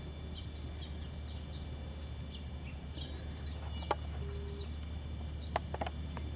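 Birds chirping in short, scattered calls over a steady low hum, with a few sharp clicks in the second half.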